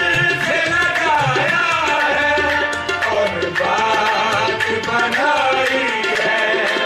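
Qawwali music: tabla playing under a melody line that bends and glides in pitch.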